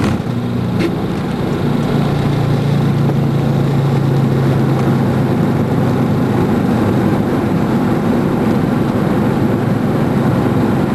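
Boeing 737-700 rolling out on the runway just after touchdown, heard from the cockpit: a bump right at the start, then a loud, steady roar of engines and rushing air that grows about two seconds in and holds.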